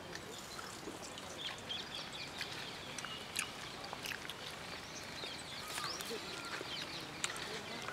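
Outdoor ambience of small birds chirping and calling: many short high chirps and quick trills, with a few sharp clicks, over a steady rural background.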